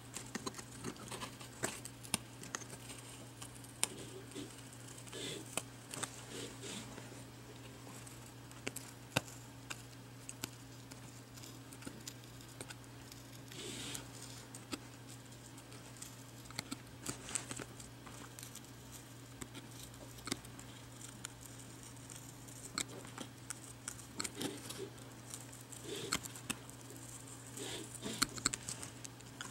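Faint, irregular small clicks and scratches of a metal hobby knife blade shaving and peeling adhesive rubber tape off a laptop's glass touchscreen digitizer, over a steady low hum.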